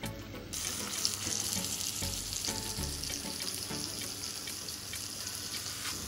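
Rack of lamb sizzling as it sears in a hot non-stick pan: a steady hiss that starts about half a second in.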